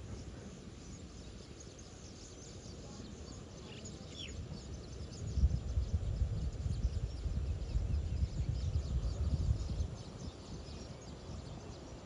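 Rural outdoor ambience: insects chirping steadily, a single short bird call about four seconds in, and a low, gusty rumble that swells between about five and ten seconds in.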